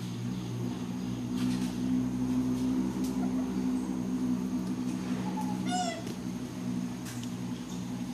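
An infant macaque gives a short, high-pitched cry about six seconds in. A steady low hum runs underneath.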